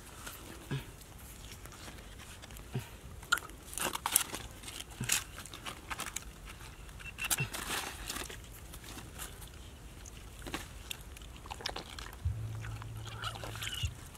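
Hands groping in wet mud inside a hole, giving scattered soft squelches and crackles at irregular intervals.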